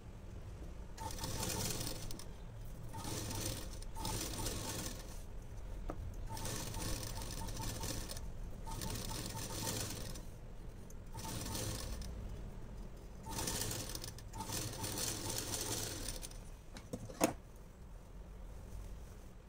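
Domestic straight-stitch sewing machine stitching in about seven short runs of a second or two each, with brief pauses between them as the fabric is turned. A single sharp click comes near the end.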